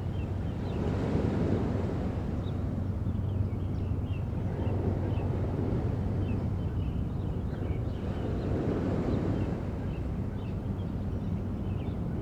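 Sea waves washing onto a beach, the rush swelling and easing about every four seconds, with wind buffeting the microphone. Faint short bird chirps sound now and then above it.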